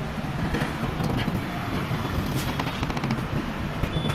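Busy street traffic noise, with a run of quick sharp clicks and taps about two to three seconds in.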